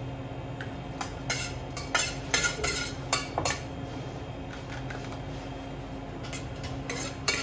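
A metal utensil clinking and scraping against a stainless steel mixing bowl as a chicory salad is tossed with its dressing, in irregular bursts with a lull in the middle. A steady low hum runs underneath.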